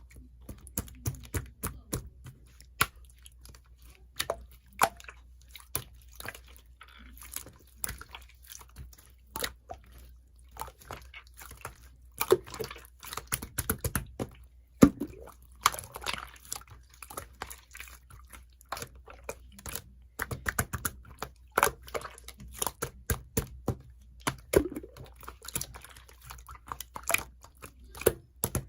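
Slime being squished and poked by hand: irregular sticky clicks and wet squelching pops, thickest in the middle and latter part.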